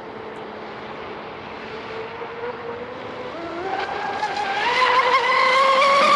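The brushless electric motor and prop of a 36-inch RC catamaran run as a steady faint whine. From about three seconds in the whine rises in pitch and grows much louder as the boat speeds up.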